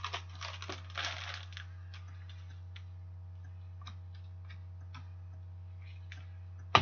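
Hockey trading cards being handled: the cards rustle and slide against each other for about the first second and a half, then faint scattered ticks as they are thumbed through and one is set down on the table. A steady low electrical hum runs underneath, and there is a sharp click at the very end.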